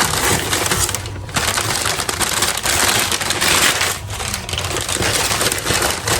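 Packaging around a mailed plant shipment being unwrapped by hand: a dense crinkling and rustling, with brief lulls about a second in and again about four seconds in.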